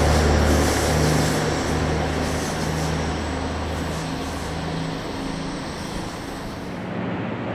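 A GO Transit bilevel commuter train pulling away: the steady drone of its diesel locomotive and the rumble of its wheels on the rails fade as it recedes.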